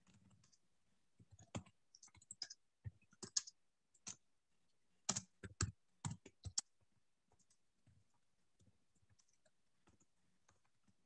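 Faint, irregular clicks and taps of someone working a computer, scattered over several seconds and stopping about two-thirds of the way through.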